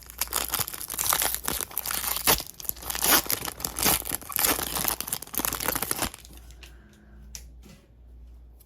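Plastic foil wrapper of a Topps baseball card pack being torn open and crinkled: a dense crackling for about six seconds, then only a few faint rustles and clicks.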